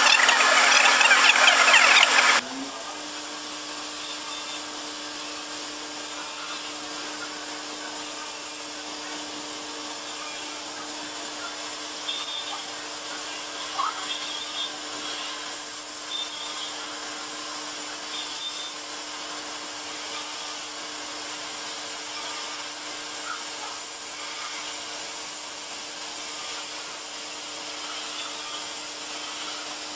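CNC milling machine spindle cutting a bike chainring with an end mill: a steady hum with a few steady tones and faint high chirps from the cut. For about the first two seconds a much louder rushing noise is heard, which cuts off suddenly.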